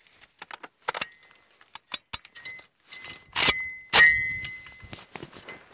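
AKS-74U (Krinkov) rifle being loaded and readied: light metallic clicks and rattles, then two sharp metallic clacks about half a second apart, a little past halfway, each followed by a brief metallic ring.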